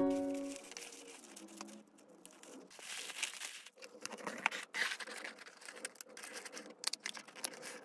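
Packaging being handled and unwrapped: irregular crinkling and rustling with scattered sharp taps and clicks.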